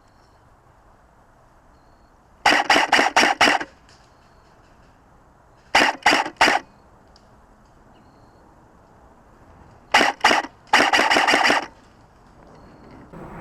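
Airsoft electric gun firing rapid strings of shots, each shot a sharp crack from the gearbox cycling: four strings of several shots each, separated by pauses of a few seconds.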